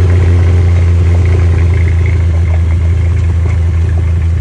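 A 1982 Toyota pickup's 22R four-cylinder engine running through Doug Thorley Tri-Y headers and Smithy's glass-pack mufflers. It makes a loud, steady, deep drone at an even engine speed as the truck drives along.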